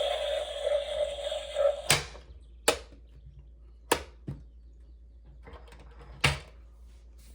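Spirit Halloween ghost trap toy playing its electronic sound effect through its small built-in speaker, a loud buzzing whir that cuts off about two seconds in. It is followed by a handful of sharp, separate clicks.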